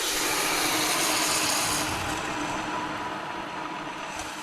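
Hot titanium hardware quenched in liquid, hissing and sizzling loudly at first, then slowly fading as the metal cools.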